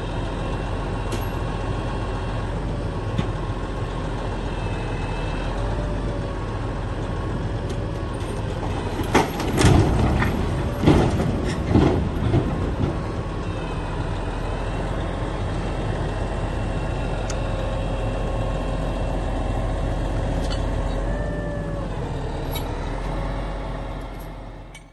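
Heavy tow truck's diesel engine running steadily under load, its pitch wavering a little. About nine seconds in, a cluster of loud bangs and crashes over roughly four seconds as the overturned semi tractor and trailer drop back onto their wheels. The sound fades out at the end.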